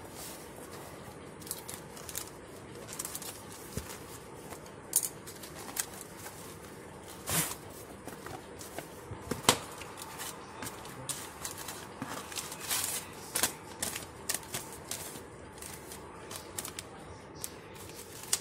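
Hands handling a corrugated cardboard mailer and paper: rustling, crinkling and scraping with many short crackles and taps, two of them sharper and louder, a little past a third of the way in and about halfway.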